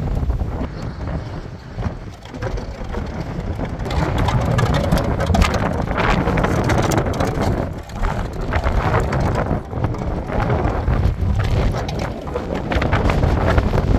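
Strong gusting wind buffeting the camera microphone, a heavy rumbling rush that swells and eases.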